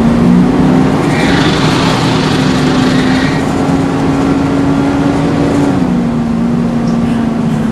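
Volvo Wright Renown bus running with its loud cooling fan, a steady drone that edges up in pitch and then drops back about six seconds in. A high hiss rises over it from about one to three seconds in.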